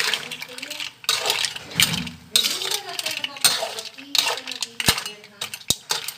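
Dishes and utensils clinking and clattering in a quick irregular run, with two dull knocks near the end.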